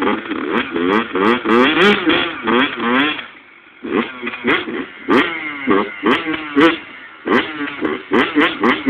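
Dirt bike engine revved in quick repeated blips, its pitch rising and falling with each one, with a brief drop back near idle about a third of the way in.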